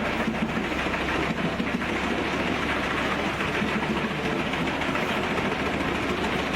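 Pezzolato PTH 1300/1500 wood chipper running, a loud, steady mechanical noise without a break.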